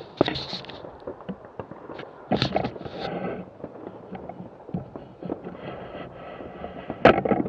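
Fireworks going off: a run of irregular bangs and crackles, the loudest burst near the end.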